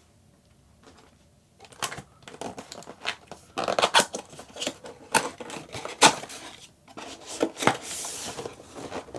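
A cardboard box being cut open with a knife and handled: a run of sharp scrapes, taps and tearing that starts about two seconds in, with a longer rasp near the end.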